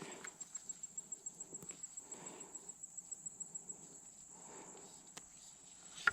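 An insect trilling steadily in a high, fast-pulsed note, with faint rustling and a small click about five seconds in.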